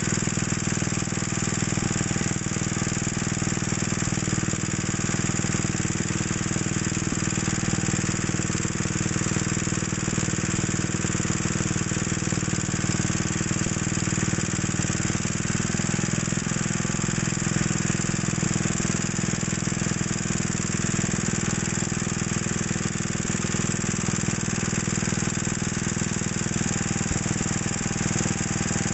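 Wisconsin ABS single-cylinder air-cooled engine running at a very slow, steady idle. The throttle is held down with a screwdriver because the governor will not let it idle that slow.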